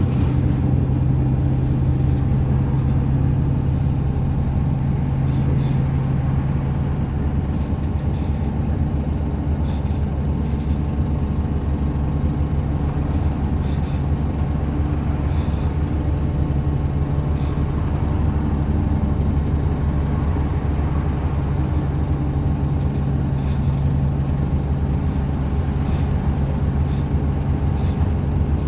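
VDL DB300 double-decker bus running with a steady, low, grumbling drone, with faint clicks scattered over it.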